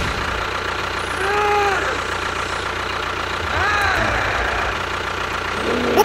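An engine idling steadily with a low rumble, the running sound of a small tractor. Two short pitched tones rise and fall over it, one about a second and a half in and one near four seconds in.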